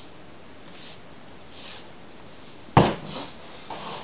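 Handling noise while a boot is worked on at a table: two faint, brief hisses, then one sharp knock a little under three seconds in, followed by softer rustling.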